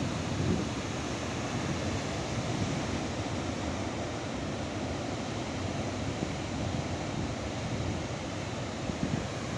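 Ocean surf breaking and washing in over a rocky reef shore, a steady rushing wash of waves, with wind buffeting the microphone.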